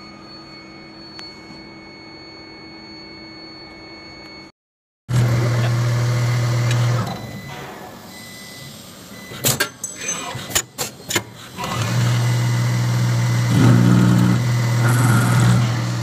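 CNC lathe running with a steady machine hum, faint at first and much louder from about five seconds in after a brief dropout. Around ten seconds a quick run of sharp clicks cuts in before the loud hum resumes.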